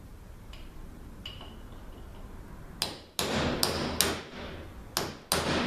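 Hammer striking a steel punch to drive the old stator bushing out of a ZF6HP26 transmission's stator shaft. Two light taps, then about six sharp metal blows from a little before the middle onward, each with a short ring.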